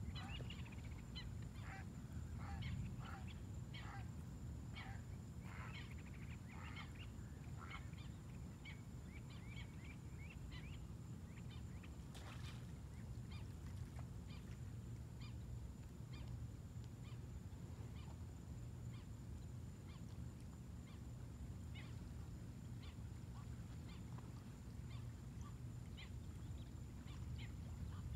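Many short animal calls repeating, thick in the first half and thinning out later, over a steady low rumble and a thin, steady high whine.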